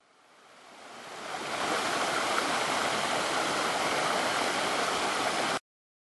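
Small creek cascading over rocks: a steady rush of water that fades in over the first second and a half and cuts off sharply near the end.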